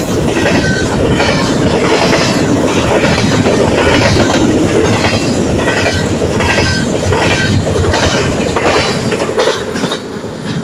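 Double-stack container well cars rolling past at close range: a loud, steady rumble of steel wheels on rail with clickety-clack over the joints. The noise falls away near the end as the last car passes and the train pulls off.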